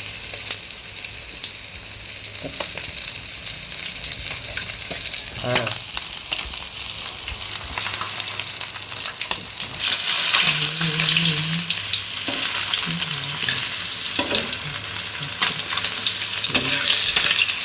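Battered chicken pieces deep-frying in hot oil: a dense, steady crackling sizzle that grows louder about ten seconds in.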